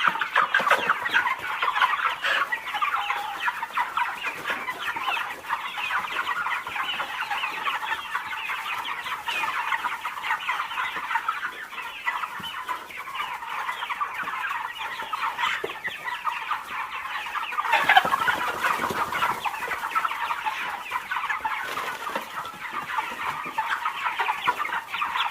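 Chickens clucking in a dense, continuous chatter of overlapping short calls, with a louder flurry of calls about eighteen seconds in.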